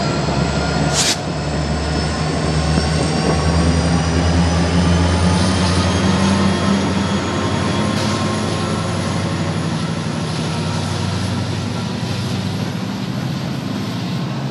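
Union Pacific diesel locomotive running with a heavy low rumble and a high whine that slowly rises in pitch as it picks up speed. A single sharp clank about a second in.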